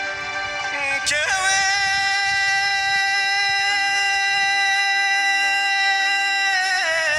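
Traditional-style song: a singer comes in about a second in and holds one long note, which wavers near the end, over an instrumental accompaniment.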